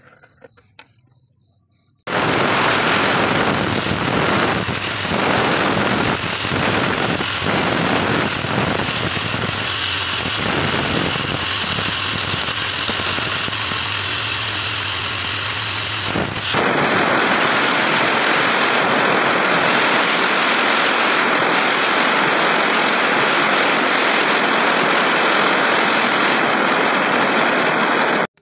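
Table-mounted electric saw with a narrow vertical blade running and cutting through wood, a loud steady machine noise. It starts abruptly about two seconds in and changes in tone partway through.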